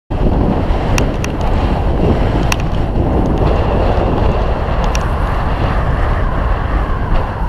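Wind buffeting the action camera's microphone on a moving mountain bike, over the rumble of knobby tyres rolling on a dirt trail, with a few sharp rattling clicks from the bike over bumps. The sound cuts in suddenly at the start.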